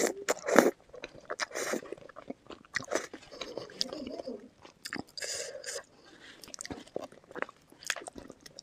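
Close-miked eating sounds: a person biting and chewing food in irregular wet bites and chews, the loudest bite about half a second in.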